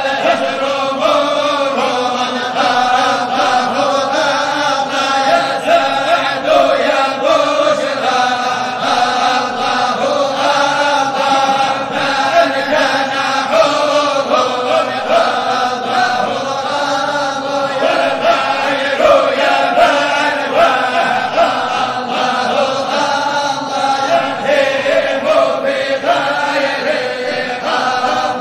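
A Sufi qasida chanted in Arabic: voices hold long, wavering lines over a fast, steady rhythmic beat.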